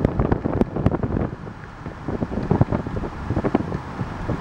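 Wind buffeting the microphone of a moving car, gusting unevenly over the car's road noise, easing for a moment about a second and a half in.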